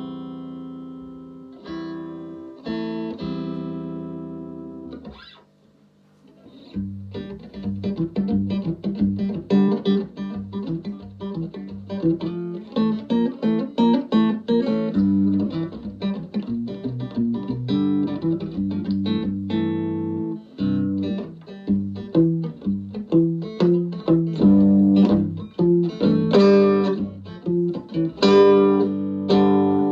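Electric guitar played through a Davoli D531T valve amplifier with ECL82 push-pull output tubes. A few held chords ring out, there is a short break about six seconds in, and then comes quick single-note picking, with chords again near the end.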